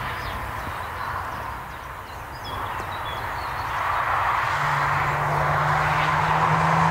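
BMW 440i coupe driving on the road, its tyre noise building as it approaches, with the steady note of its turbocharged 3.0-litre straight-six coming in about halfway through and stepping slightly higher in pitch near the end.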